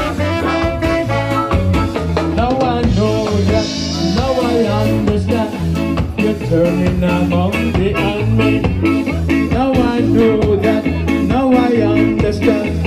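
A ska band playing live, with a horn section of trumpet, saxophone and trombone over drums and electric guitar.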